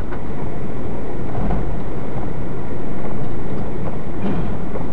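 Steady, loud rumble of a semi-truck driving on a snowy highway, heard from inside the cab: engine and road noise, with a slight swell about three seconds in.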